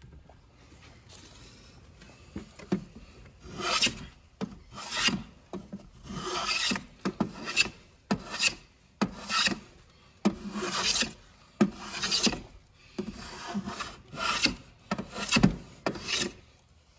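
Hand plane shaving the edge of a wooden casement sash in about a dozen strokes, roughly one a second, trimming the sash where it binds against the frame.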